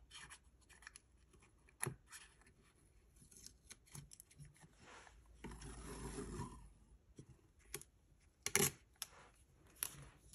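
Small handling noises of washi tape and paper at a desk: light clicks and taps, a rustling scrape about halfway through as a roll of washi tape is taken from its holder, and a sharp click a little later.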